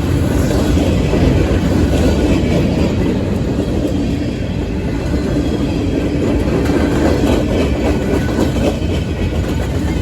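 Long freight train's cars rolling steadily past, a continuous rumble of steel wheels on the rails.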